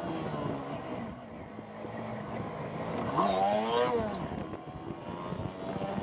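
Honda CB 125 F's single-cylinder four-stroke engine pulling uphill. Its revs climb sharply and fall back about three seconds in.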